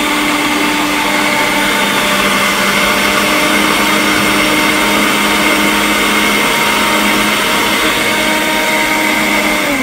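Electric countertop blender running steadily at one pitch, puréeing canned chickpeas with some of their water into a thick paste. The motor stops abruptly near the end.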